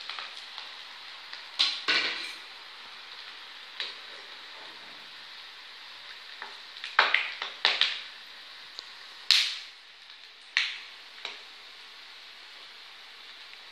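Potato pieces deep-frying in hot oil in a small pan, a steady sizzle throughout, with a slotted spatula knocking and scraping against the pan several times.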